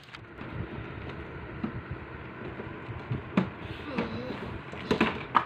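A few light knocks and clicks of a plastic toy kitchen door being handled by a toddler, over a steady background hiss. A short child's vocal sound about four seconds in.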